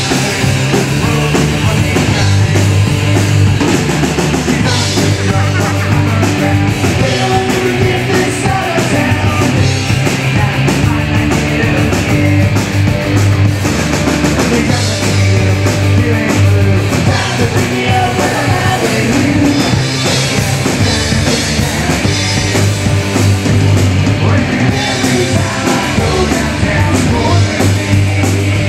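Live rock band playing loud: two electric guitars, electric bass and a drum kit, with shouted vocals.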